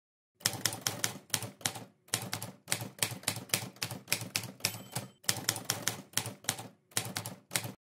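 Typewriter keys clacking in quick runs of strikes, with short pauses about two seconds in, about five seconds in and near seven seconds; it stops just before the end. It is a typing sound effect.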